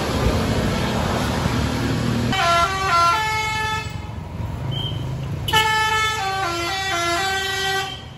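Tour bus's basuri musical horn playing a 'telolet' tune of short stepped notes, in two phrases: one starting about two seconds in, another about five and a half seconds in. Before the first phrase there is a loud, even rushing noise.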